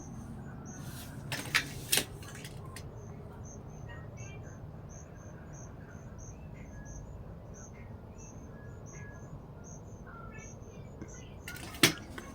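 Crickets chirping: short, high chirps repeating steadily over a low background hum. A few sharp clicks come about a second and a half in, again just after, and once near the end.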